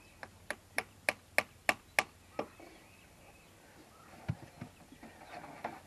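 Maple sap spout being hammered into a tap hole in a maple trunk: about eight sharp, evenly spaced strikes, roughly three a second, stopping about two and a half seconds in, followed by a single knock near the end.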